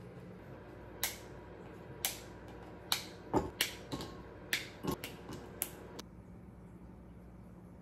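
A spoon clicking and knocking against a metal tart tin and small cups while pressing down a biscuit-crumb base, about a dozen sharp taps over some five seconds, one of them a duller thump. A faint steady hum runs underneath.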